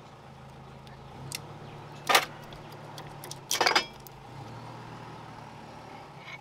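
Metal parts clinking as the drive flange is worked off the splined front axle shaft of a Land Rover hub, with two louder metallic clatters about two seconds and three and a half seconds in. A steady low hum underneath.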